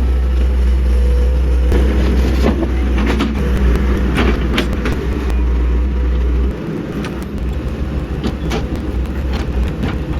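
Excavator running, a deep steady engine rumble with scattered knocks and clanks; the rumble drops off sharply about six and a half seconds in.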